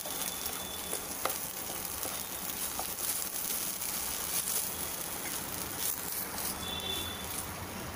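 Ginger-garlic paste cooking in a little oil thinned with water, sizzling steadily in the pan with a few faint crackles.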